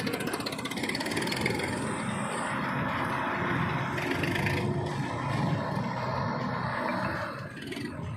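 Diesel engine of heavy earth-moving machinery running steadily, dipping briefly near the end.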